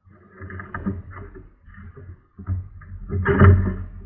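Fishing kayak being paddled with a double-bladed paddle: irregular strokes with splashing and knocks. The loudest comes about three and a half seconds in.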